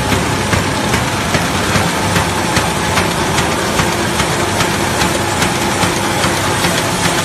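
QFD-330 kraft paper bag making machine running: a loud, steady mechanical clatter of rollers and drive, with a sharp clack repeating evenly about two to three times a second.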